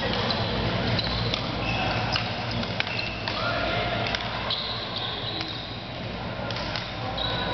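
Badminton doubles play on a wooden indoor court: sports shoes squeaking on the floor several times and sharp clicks of rackets striking the shuttlecock, echoing in the large hall.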